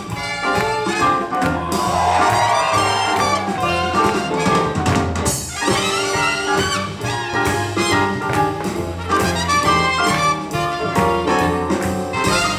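Live swing jazz band playing an up-tempo tune: trumpet and trombone lead over guitar, double bass and drums keeping a steady beat.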